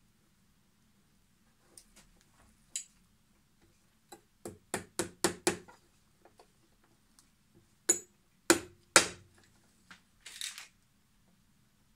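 Hammer tapping nails through a metal toe plate into a leather boot sole: a quick run of about six light taps, then three harder blows about half a second apart with a short metallic ring. A brief scuff follows near the end.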